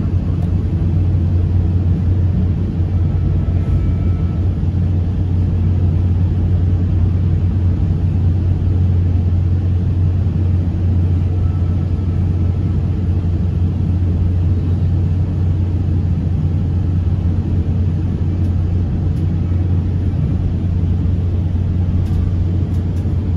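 SunRail commuter train in motion, heard from inside the passenger coach: a steady low rumble that keeps an even level throughout.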